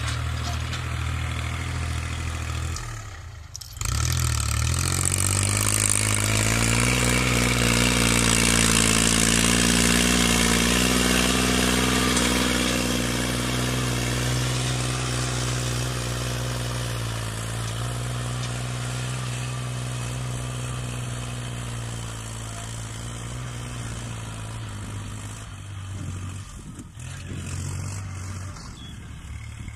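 Kubota L3608SP tractor's diesel engine running steadily under load as it pulls a disc plough through dry field soil. After a brief drop-out about three seconds in, it grows louder as the tractor passes close, then fades as it moves away.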